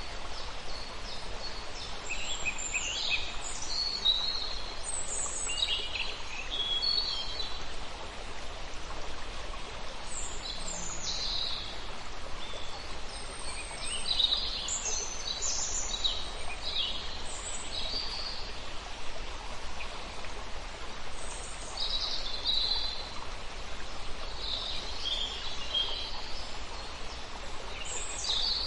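Songbirds chirping and singing in short, scattered phrases over a steady rush of running water.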